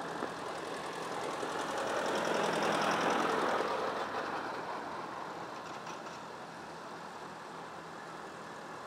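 Vintage farm tractor engine running as the tractor drives past, growing louder to a peak about three seconds in and then fading as it moves away, with more tractors running in the distance.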